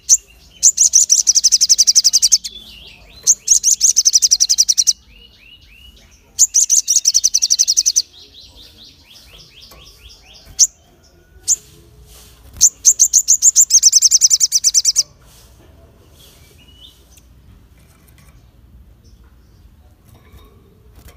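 Male olive-backed sunbird (sogon) singing in loud, sharp, rapid trills of evenly repeated high notes, well over ten notes a second. It sings four runs of about two seconds each, with a few single sharp notes between them and fainter, lower trills in the pauses.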